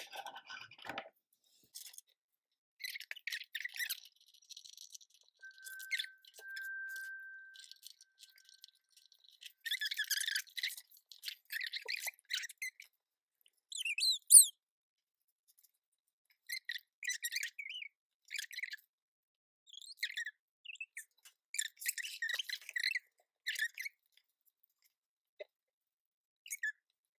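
Intermittent squeaks, clicks and scrapes of small metal and plastic parts being handled: brass standoffs, nuts, screws and the fan-and-heatsink block of a tower cooler being fitted to a Raspberry Pi 4 board. The loudest is one brief squeak rising and falling in pitch about fourteen seconds in.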